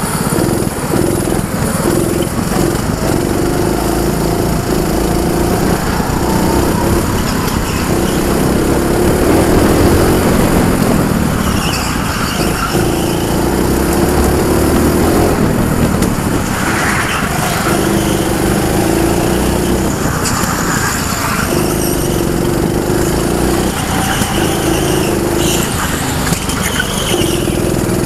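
Small go-kart engine running hard under the driver, its note cutting back and picking up again over and over as the throttle is lifted and reapplied through the corners.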